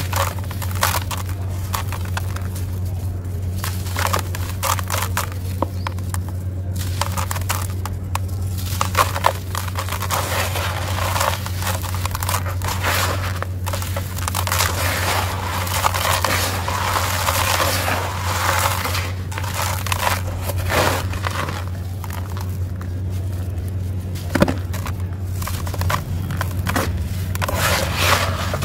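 Dry, gritty sand chunks crushed and crumbled by hand, a dense run of crunching and crackling as the grains fall into a plastic tub, over a steady low hum.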